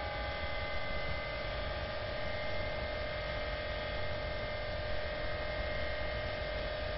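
Electric motor and propeller of a small RC airplane, whining steadily at one unchanging pitch over a constant hiss as the plane cruises at fixed throttle.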